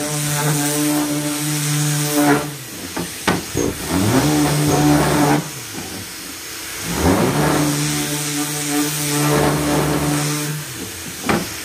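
SurfPrep 3x4 electric Ray sander with a foam abrasive pad running in three bursts, its motor whine rising in pitch as it spins up and falling as it winds down between them, while it sands and breaks the sharp edges of a plywood panel.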